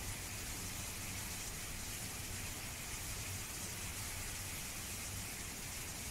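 Steady, even hiss with a low hum underneath, unchanging throughout, with no distinct sounds standing out.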